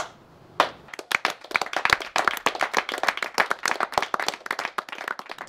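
A small group of people clapping, starting about half a second in.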